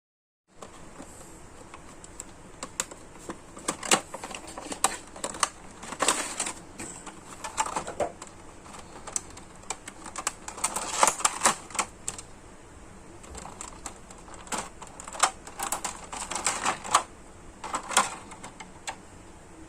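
Irregular light clicks and taps of small hard plastic parts and tools being handled on a work surface, in uneven clusters over a steady faint hiss.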